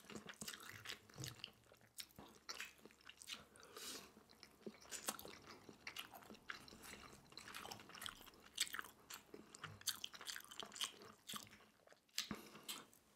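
Close-miked chewing of pan-fried cheung fun (rice noodle rolls): faint, irregular mouth clicks and smacks.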